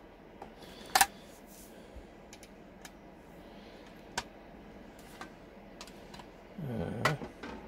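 Scattered clicks and taps of a hand pop rivet gun and a thin scrap-metal disc being handled. There is one sharp, loud click about a second in and lighter ticks later. A short murmur from a man comes near the end.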